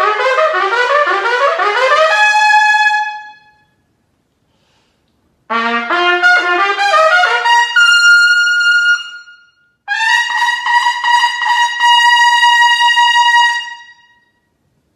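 Solo trumpet playing, unaccompanied. A fast run of notes ends on a held high note; after a pause of about two seconds comes a quick run climbing from a low note to another held high note, and after a brief break a long sustained high note closes it.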